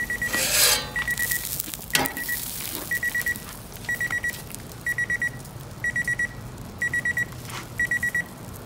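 A digital cooking timer going off: a high beep in quick groups of four, repeating about once a second. Near the start a short hiss is louder than the beeps, and there is a sharp knock about two seconds in.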